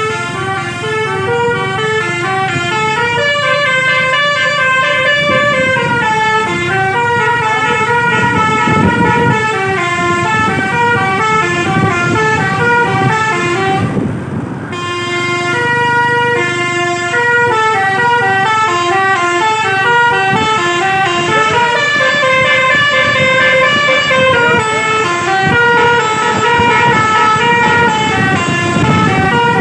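Indonesian bus basuri (telolet) multi-tone horns playing a melody note by note over the noise of bus engines. The tune breaks off briefly about fourteen seconds in, then starts again.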